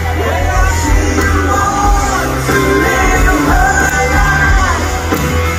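Live rock band playing with a lead singer, heard from the audience of an open-air amphitheater.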